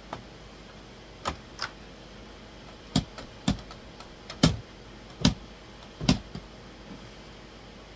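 A series of about nine sharp knocks at uneven intervals, the loudest in the middle: a wall mount bracket being tapped to nudge it level.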